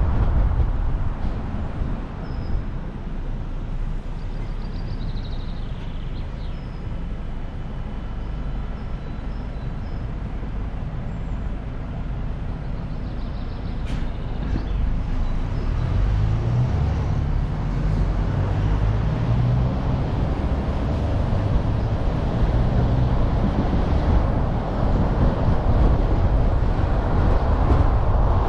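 Car driving along a town road: steady engine and tyre rumble, which grows louder past the middle with a low hum as the car picks up speed.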